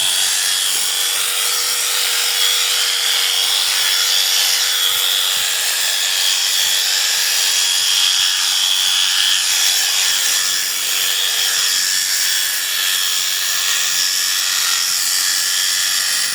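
Electric sheep-shearing clippers running steadily, a continuous motor buzz with a constant hiss of the cutter.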